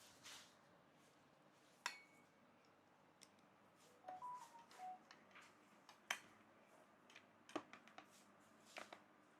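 Faint, scattered metallic clicks and taps of a tool on the bolts of a standing fan's base as they are tightened, the sharpest about two and six seconds in. A few short squeaks come about four seconds in.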